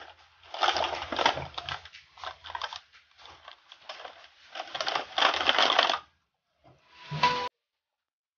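Plastic packaging and bubble wrap crinkling in several rustling bursts as a parcel is unwrapped by hand; the sound cuts off suddenly about a second before the end.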